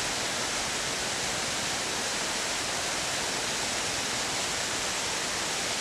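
Steady, even rushing of running water, like a forest stream or waterfall.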